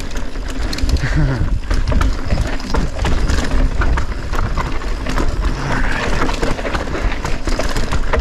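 Polygon Siskiu full-suspension mountain bike riding fast down a rocky dirt trail: tyres rolling over dirt and stones, with frequent rattles and knocks from the bike over the bumps, and wind buffeting the camera microphone.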